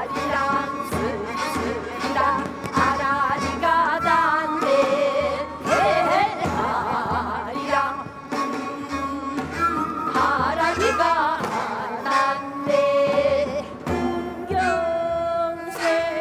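A woman singing a Namdo minyo (southern Korean folk song) in a throaty, heavily ornamented voice with wide, bending vibrato. Underneath, a janggu and buk beat steady time, with a bowed ajaeng accompanying.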